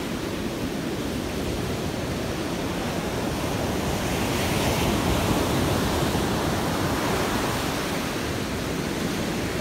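Ocean surf breaking and washing up a sandy beach in a steady rushing wash, swelling a little as a wave crashes about halfway through.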